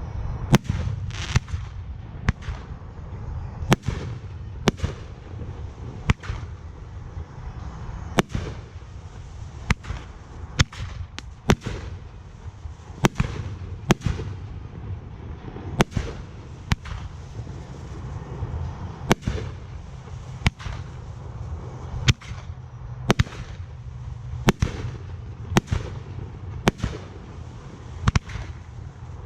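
Aerial fireworks shells bursting in quick succession during a fireworks display: sharp bangs about once a second over a continuous low rumble.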